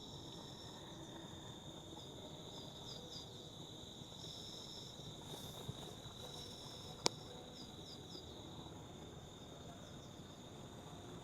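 Faint, steady high-pitched trilling of insects, with a second, higher call that comes in stretches and breaks into quick chirps in small groups. A single sharp click about seven seconds in.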